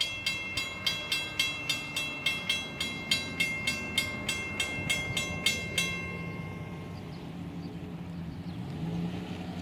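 Railroad crossing bell ringing in quick, even strokes, about three to four a second, stopping about six seconds in; a low engine rumble carries on underneath and swells near the end.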